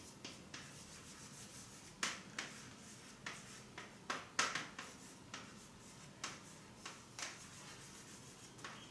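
Hand writing: faint, short scratchy strokes of a pen or marker, about a dozen, at an uneven pace as the answer line is written out.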